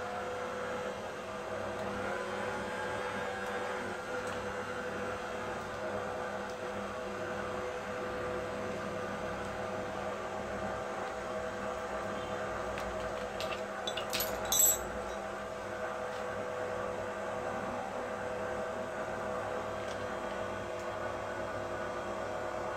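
Signora stand mixer's motor running with a steady whine, its pitch shifting in the first few seconds as the speed buttons are pressed, then holding steady; it sounds smooth, the sign of a mixer now running properly after repair. A few sharp clicks come about 14 seconds in.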